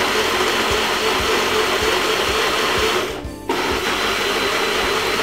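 Personal smoothie blender running steadily, blending fruit, ginger and ice water into juice. It cuts out for a moment a little over three seconds in, then runs on.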